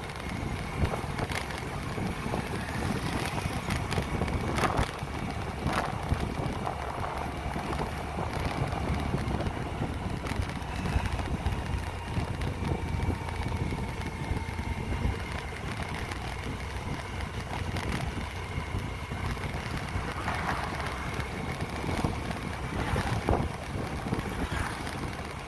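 Wind buffeting the microphone of an open two-wheeler riding along a road, with steady road and vehicle noise underneath and a few light knocks.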